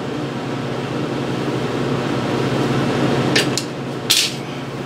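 Steady electrical hum and fan noise from an idling 1962 Lincoln Idealarc 250 stick welder, with no arc struck. Two brief scratchy sounds near the end.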